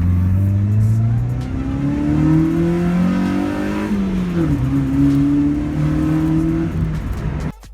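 Stock Honda Civic engine accelerating through the gears: the revs climb, drop at a gear change about four seconds in, then climb again before the sound cuts off suddenly near the end.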